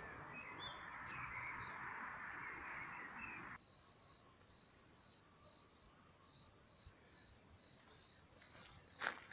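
A steady hiss for the first few seconds stops abruptly. After it, an insect, most likely a cricket, chirps steadily at about three high chirps a second. Near the end come two sharp clicks.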